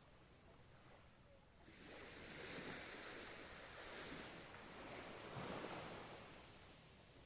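Ocean waves: a wave swells in about two seconds in and washes over in a few soft surges, then fades away near the end.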